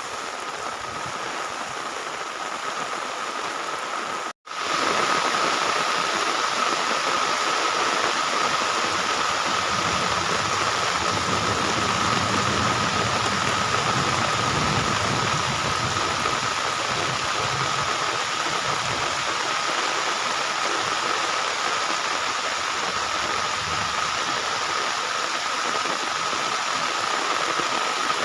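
Heavy rain pouring down, a steady dense hiss. It cuts out for an instant about four seconds in and comes back a little louder, with a faint steady high hum under it.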